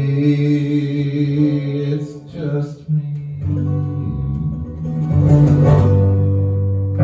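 Acoustic guitar playing the closing chords of a song live, sustained notes ringing with a few fresh strums along the way.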